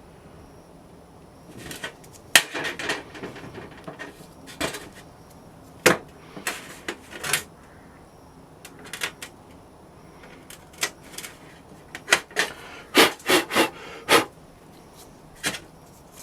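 Irregular knocks, clicks and short scrapes of objects being handled on a hard work surface, with a quick run of several knocks near the end.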